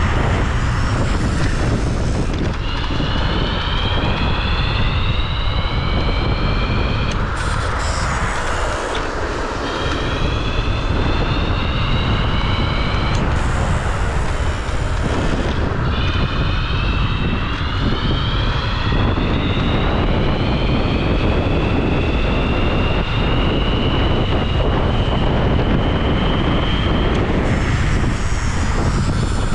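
Electric scooter motor whining as the scooter accelerates, the whine rising in pitch over several seconds and then dropping away, several times, under heavy wind noise on the microphone.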